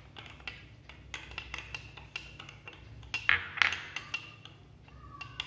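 Metal spoon stirring milk and sugar in a drinking glass, clinking against the glass in rapid, irregular taps, with two louder clinks a little past halfway.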